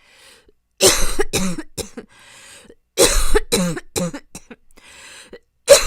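A young woman in a hard, chronic coughing fit: three bouts of several harsh coughs each, about a second in, about three seconds in and near the end. She draws breath audibly between bouts.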